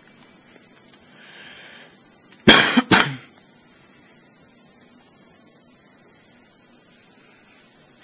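A person coughing twice, close to the microphone, about half a second apart, over a steady faint hiss.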